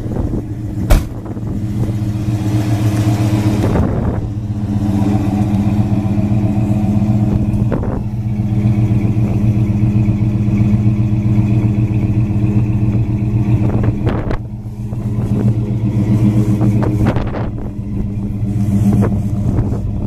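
A 1966 Ford Thunderbird's V8 idling steadily, with one sharp knock about a second in.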